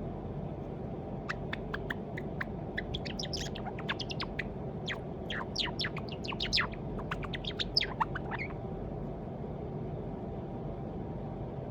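A white Java sparrow, likely male, practising its song: a fast run of clicking and chirping notes lasting about seven seconds, which stops well before the end.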